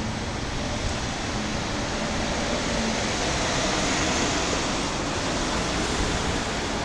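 Steady outdoor rushing noise with no distinct events, swelling slightly around the middle.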